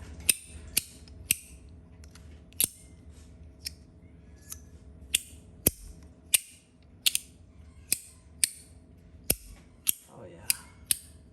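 Compoform V1.1 fidget slider being worked back and forth along its track, its halves snapping shut with sharp clacks, about one or two a second at an uneven pace.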